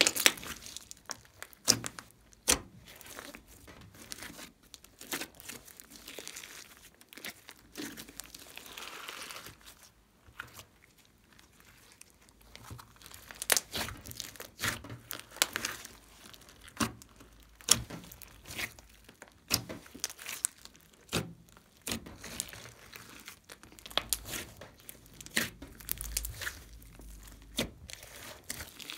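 Hands kneading and squeezing a large glossy mixed slime, which gives off irregular sharp wet clicks and crackling pops as it is pressed and folded.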